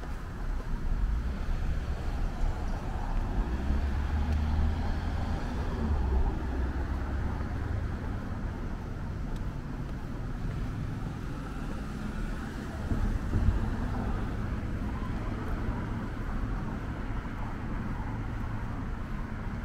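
Cars passing on a road over a steady traffic hum, with tyre and engine noise swelling a few seconds in and again briefly later on.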